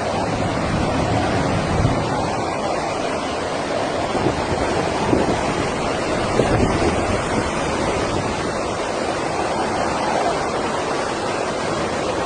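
Steady roar of rushing storm water with typhoon wind buffeting the microphone.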